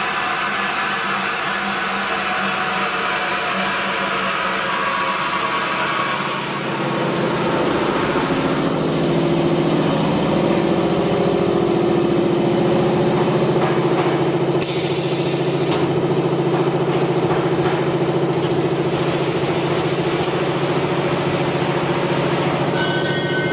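Five-gallon bottle rinsing, filling and capping machine running: a steady hum from its motors and pumps over a hiss of spraying water. The hum gets a little louder about seven seconds in.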